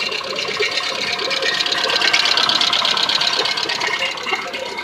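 2005 Chevrolet Aveo's four-cylinder engine idling steadily, burning off oil that got into its cylinders.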